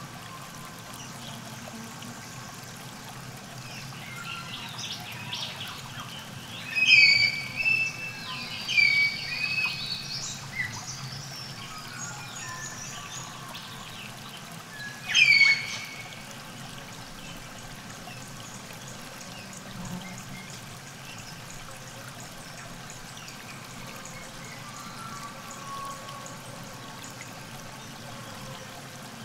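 River water trickling steadily at the bank, with songbirds calling in loud, short chirps, several between about seven and eleven seconds in and once more around fifteen seconds.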